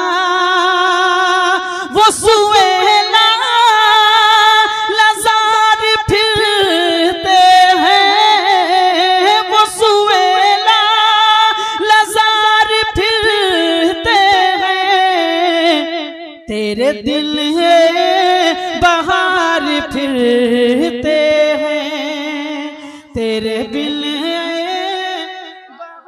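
A man singing devotional Urdu verse (a naat) solo and unaccompanied, in long, ornamented held notes. He drops to a lower pitch for the later lines and breaks off abruptly at the end.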